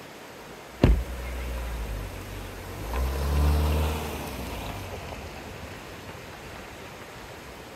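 A car door shuts with a sharp thump. About two seconds later the car's engine starts and runs, loudest for about a second before settling lower.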